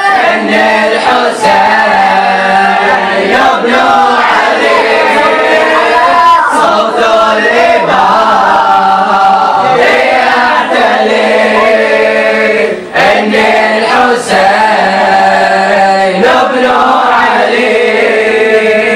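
A chorus of boys chanting an Arabic Shia mourning lament (latmiya) together, voices only with no instruments. The singing is loud and continuous, with two short breaks between lines in the second half.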